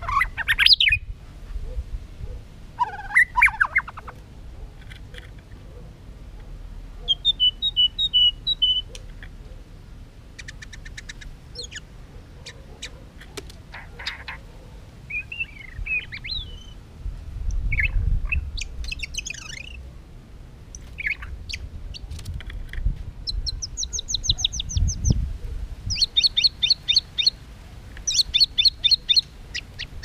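White-rumped shama singing a varied, broken song of short whistled phrases, ticking rattles and gliding notes. The song ends in fast runs of repeated high notes over the last few seconds.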